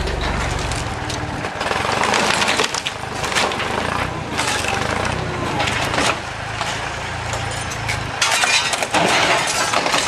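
Wooden boards and framing being torn apart and collapsing: repeated cracking and splintering, loudest about two seconds in and again near the end as a section of wall comes down. A low engine hum runs underneath until about eight seconds in.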